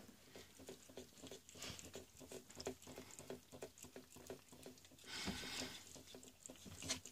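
Domestic cat licking and chewing mashed potatoes and peas from a plate: faint, quick mouth clicks at about three or four a second, with a short soft rush of noise about five seconds in.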